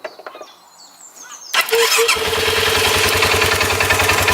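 Polaris RZR 570's single-cylinder engine cranked by its starter motor, its solenoid terminals bridged with a spanner, catching within about half a second and settling into a steady idle with an even beat. Faint bird chirps are heard before the start.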